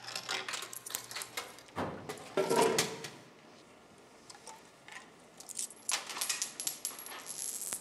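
Loose coins clinking and jingling as a handful of change is fumbled: a run of small metallic clicks, with a denser rattle over the last two seconds.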